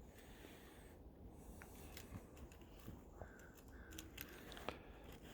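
Near silence: faint outdoor background with a few soft scattered clicks and ticks.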